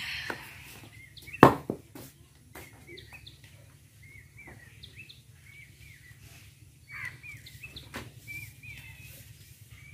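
Small birds chirping over and over in short high calls, with one sharp knock about a second and a half in.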